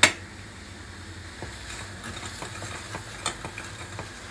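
A single sharp clink of a utensil against the steel cooking pot at the very start, then a few faint ticks over a low steady hum.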